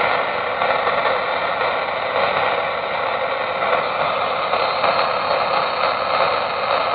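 Galaxy DX 95T CB radio's speaker giving a steady static hiss on 27.475 MHz: band noise with the squelch open, no station getting through.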